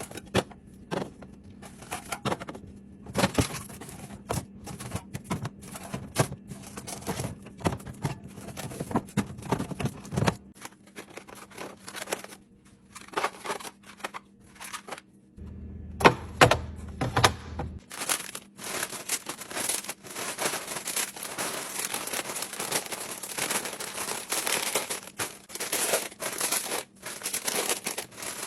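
Food packaging and plastic containers being handled: crinkling wrappers with many quick clicks and knocks as items are set down. The background changes suddenly a few times, as separate short recordings follow one another.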